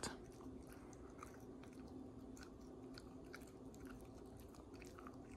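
Beagle puppy chewing a sweet potato treat: faint, irregular crunching and biting clicks, several a second.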